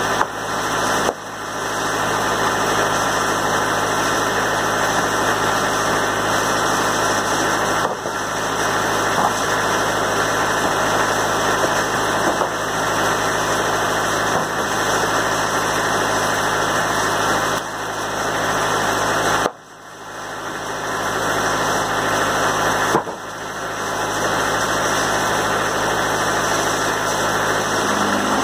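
Wood-Mizer portable band sawmill running steadily, its engine and saw making a loud, even noise. A couple of sharp knocks of boards being handled, one about a second in and one near the end.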